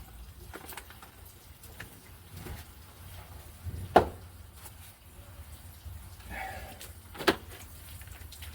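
Window glass being scrubbed with a cleaning applicator, a faint rubbing, broken by two sharp knocks about four and seven seconds in.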